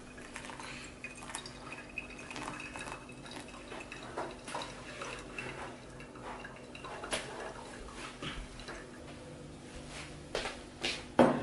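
Hot water poured from a kettle onto coffee grounds in a paper pour-over filter, with soft drips and light clinks and taps of crockery. A sharp knock near the end, like a plate set down on the table.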